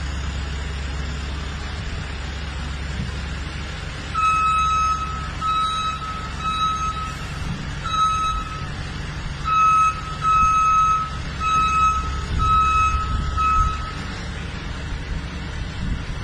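Tractor-mounted tree-shaker harvester's engine running with a steady low rumble. A warning beeper on the machine sounds a string of about ten short beeps, all at one pitch, starting about a quarter of the way in and stopping a couple of seconds before the end.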